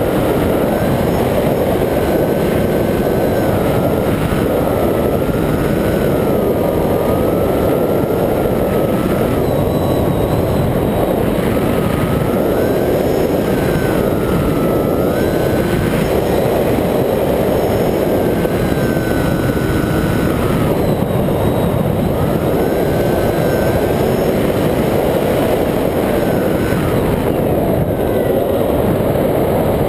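Multiplex EasyStar RC plane's electric pusher motor and propeller, with steady wind rush over an onboard camera mounted on the wing. A faint whine rises and falls in pitch every few seconds.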